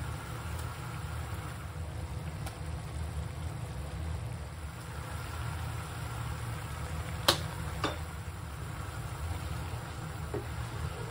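Sauce simmering and bubbling in a frying pan over a steady low hum, with two sharp clicks a little over halfway through.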